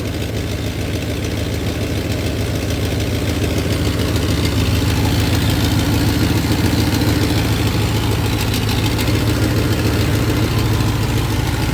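Dodge Magnum 5.9 (360) V8 running at a steady idle, warmed up with the thermostat open, getting a little louder about four seconds in.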